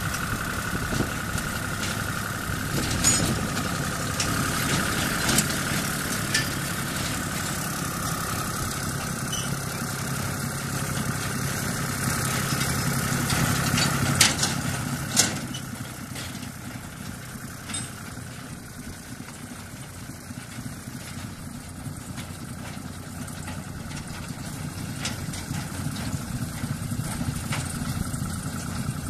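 Small narrow-gauge diesel locomotive's engine running steadily as it hauls a train of skip wagons, with a few sharp clanks. About halfway through the engine sound drops to a quieter, steady drone.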